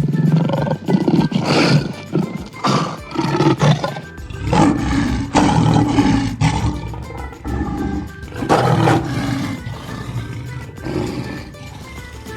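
Lion roaring again and again in long, deep bouts, about six in all, over background music.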